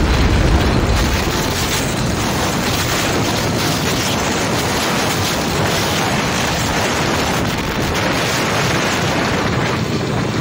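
Steady wind rush on the microphone of a camera on a moving motorcycle, with the bike's riding noise underneath.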